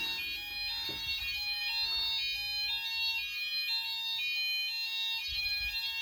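Fire alarm sounders, a Klaxon Universal sounder base and a C-Tec active sounder, sounding the Apollo alternating two-tone, switching evenly between two pitches. They were set off by a key-tested manual call point.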